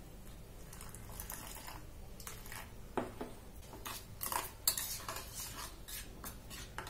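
Steel spoon stirring and scraping in a small steel bowl, mixing spice powders into a paste; irregular light clinks and scrapes begin about two seconds in.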